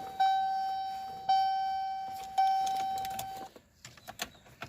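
A car's electronic warning chime ringing about once a second, each chime dying away, four times; it stops about three and a half seconds in and is followed by a few sharp clicks.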